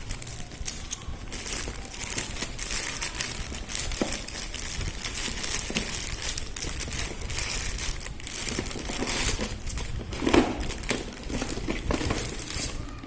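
Packaging crinkling and rustling as it is handled and opened, with many small crackles and a louder bump about ten seconds in.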